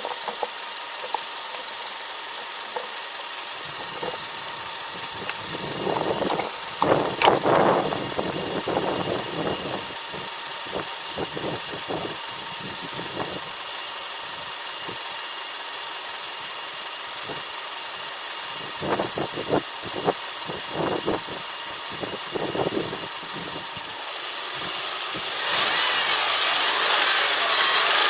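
Subaru EJ253 2.5-litre flat-four running with knocking from a damaged engine, with two spells of louder, clustered knocks. About 25 seconds in, a louder steady rushing noise sets in over it.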